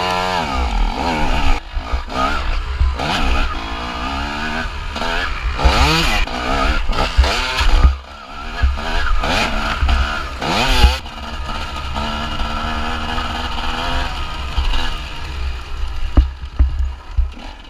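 Two-stroke TM 250 EN enduro motorcycle engine, heard close from onboard, revving hard with repeated sharp rises and drops in pitch as the rider works the throttle and gears. From about eleven seconds in it runs steadier at a lower pitch, then fades away at the very end.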